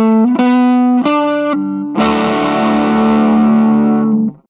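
Overdriven electric guitar played through an amp: a short phrase of single picked notes, then a chord struck about two seconds in that rings on and is cut off near the end.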